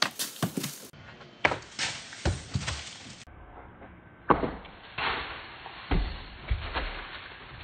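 Skateboard clacking and thudding on a backyard plywood ramp as the riderless board hits and tumbles across the boards, wheels rolling between the knocks. The knocks come about ten times, spread out, the sharpest around the middle.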